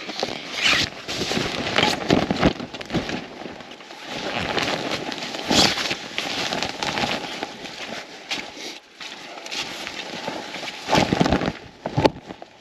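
Irregular rustling and crackling, with a few sharp clicks, as a hunting blind's fabric and frame are handled during setup.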